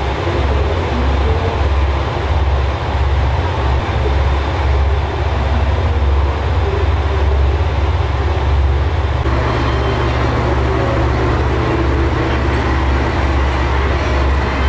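Diesel railcar (JR Kyushu KiHa 185 series) idling at a standstill, a steady low engine rumble, growing fuller about nine seconds in as the listener comes to the open door and into the car.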